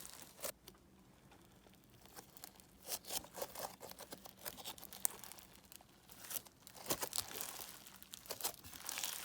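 Hands squishing and stretching a crunchy bingsu bead slime, giving irregular crackles and small sharp pops.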